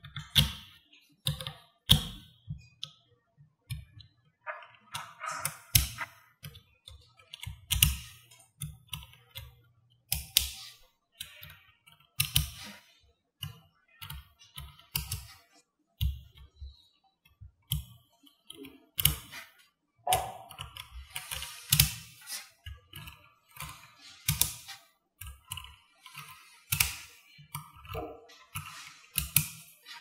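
Small metal magnetic balls clicking together as strands of them are pressed and snapped onto a build: irregular clusters of sharp clicks with short pauses between them.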